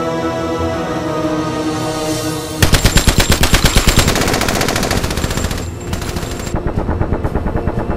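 Sustained soundtrack music, then about two and a half seconds in a machine gun opens fire in a long, rapid burst of about eight shots a second. After about three seconds the firing goes on more quietly under the music.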